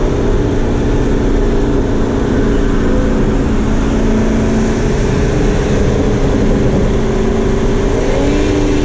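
Car engine and road noise heard from inside the cabin of a moving car, a steady drone. A little past eight seconds in, the engine note rises and then holds at a higher pitch.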